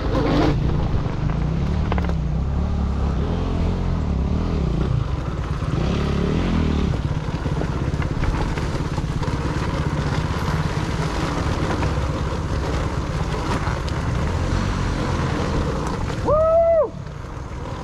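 Dirt bike engine running steadily as the bike is ridden, its pitch rising and falling a little in the first several seconds. A brief call from a voice near the end.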